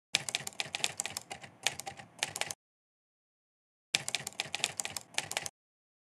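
Keyboard typing sound effect for text typed onto the screen: two quick runs of key clicks, the first about two and a half seconds long and the second about a second and a half, with dead silence between them.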